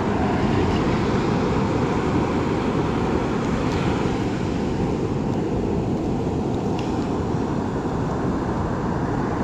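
Steady low rushing noise of surf and wind at the shoreline, with a couple of faint ticks.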